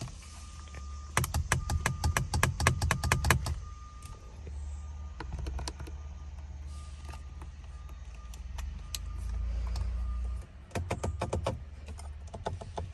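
Fast runs of sharp clicks in a 2012 Nissan Maxima SV as the horn is pressed over and over without sounding. The clicks come in several bursts, over a steady low rumble, with a faint high beep repeating on and off.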